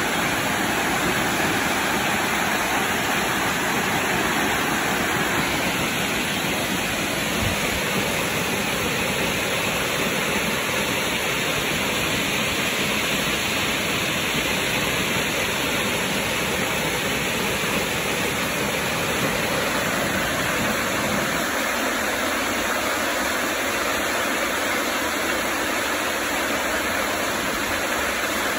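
Waterfall pouring down a steep rock face, a steady, dense rush of falling water.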